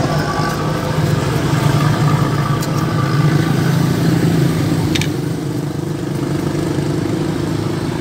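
A motor or engine running steadily with a low hum, and a single sharp click about five seconds in.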